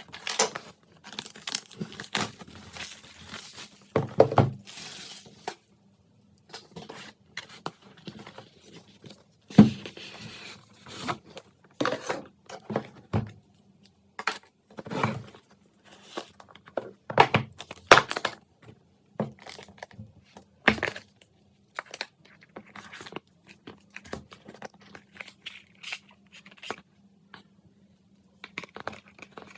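Packaging being opened and handled: irregular tearing and crinkling of wrapping, with scattered sharp clicks and knocks of the box and its parts.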